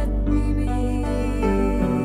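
Slow instrumental background music: sustained notes over a low drone, which drops out near the end.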